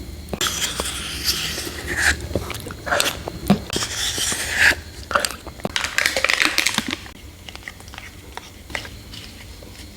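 Mouth sounds of someone eating váng sữa, a soft milk-cream dessert: chewing with sharp clicks and smacks, dying down over the last three seconds.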